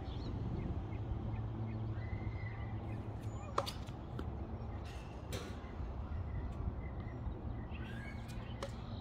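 Tennis rally: a sharp crack of a racket striking a tennis ball about three and a half seconds in, then a fainter hit from farther off about two seconds later, over a steady low hum.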